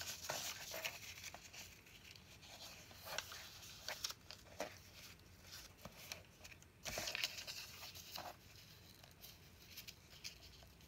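Thin paper being folded and handled by hand: faint rustling and creasing with scattered light taps, and a louder rustle about seven seconds in.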